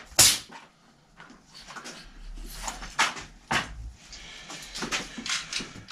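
Workshop handling noises: a sharp knock about a quarter second in, then several shorter knocks and rustles a few seconds later.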